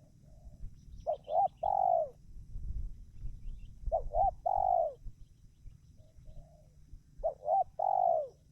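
Spotted dove (tekukur) cooing its song three times. Each phrase is two short coos followed by a longer coo, about three seconds apart. Softer, fainter coos fall between the phrases.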